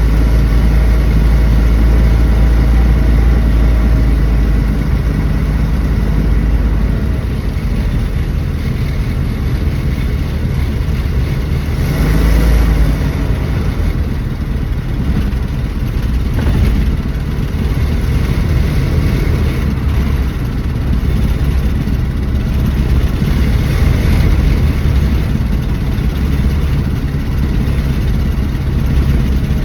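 1974 Dodge Dart engine running steadily, with a brief rise in revs about twelve seconds in and smaller swells later.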